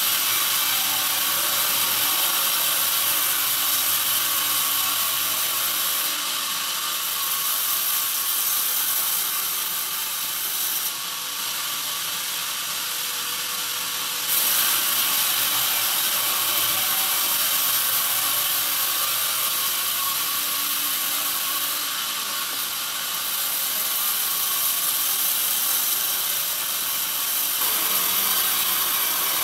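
A band sawmill's blade ripping lengthwise through a pine beam as the carriage feeds it past, a steady high rasping hiss that gets louder about halfway through.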